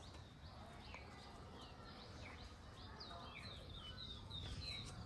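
Faint chirping of small birds: a steady string of short, high chirps, about three a second, coming thicker in the second half, over a low background rumble.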